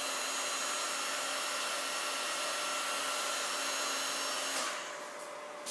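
Electric hot-air blower running steadily with a fan whine, shrinking heat-shrink tubing over a freshly soldered wire-to-connector joint; it switches off about four and a half seconds in.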